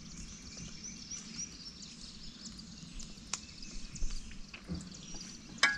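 A bird singing a quick run of high chirping notes, about five a second, for the first couple of seconds, over faint outdoor background. Two sharp clicks or knocks, the louder one near the end.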